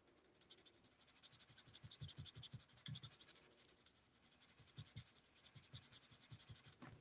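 Faint scratching of a Stampin' Blends alcohol marker tip colouring on cardstock in quick, short strokes, with a brief pause about halfway through.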